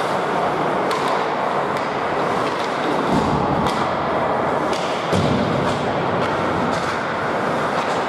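Ice hockey game play in a rink: a steady wash of skating and arena noise with several sharp clacks of sticks and puck, and two dull thumps, one about three seconds in and one about five seconds in.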